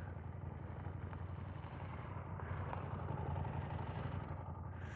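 KTM 890 Adventure R's parallel-twin engine idling steadily, swelling slightly in the middle.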